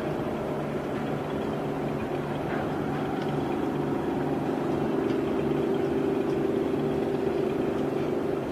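Ship engines running: a steady low hum with a constant tone, growing a little louder in the second half.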